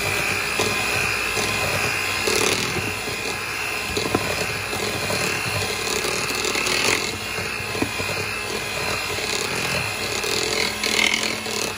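Electric hand mixer running steadily at one speed with a constant high whine, its beaters beating an egg into creamed butter and sugar. A few knocks are heard along the way.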